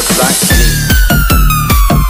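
Khmer electronic dance remix music. About half a second in, a heavy, fast, steady kick-drum beat comes in under a long tone that slides slowly downward.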